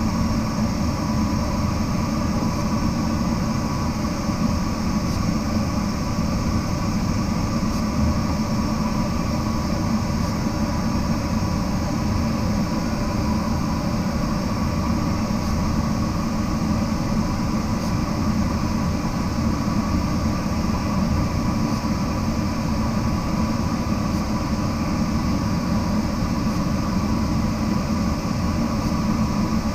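Steady airflow noise over a glider in flight, heard from inside the cockpit, unchanging throughout, with faint steady tones in the background.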